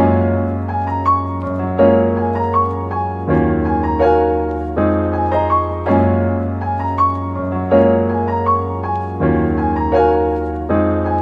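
Background piano music: a calm, repeating pattern of notes over a held bass, a new chord about every one and a half seconds.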